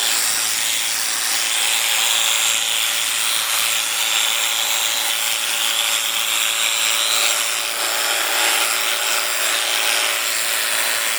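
Electric sheep-shearing clippers running steadily with a continuous hum, their cutter rasping through wool.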